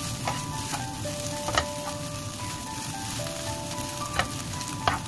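Fried rice and lettuce sizzling in a stone-coated wok as a wooden spatula stirs and tosses it. A few sharp knocks of the spatula against the pan stand out.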